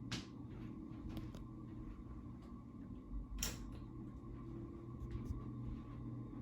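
SMC Ornate A52 ceiling fan running with a steady low electrical hum. Two sharp clicks, one just at the start and one about three and a half seconds in, with a few fainter ticks between.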